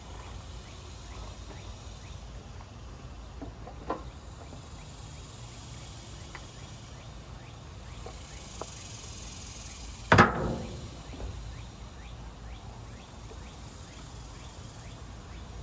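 Rummaging through junk in a steel roll-off dumpster: scattered light clicks and knocks of items being handled, and one loud bang with a short clatter about ten seconds in as something hits the dumpster or the things inside it.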